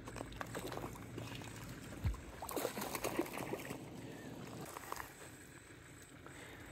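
A small hooked redfin perch splashing at the surface while being reeled in and swung ashore on an ultralight rod, with a thump about two seconds in and a flurry of splashes and rustles soon after.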